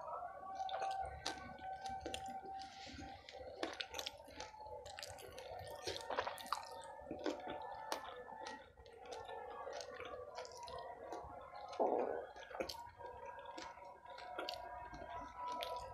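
Close-miked chewing of batagor (fried fish dumpling in peanut sauce) with the mouth closed: wet squishing and many small mouth clicks. There is one louder, lower sound about twelve seconds in.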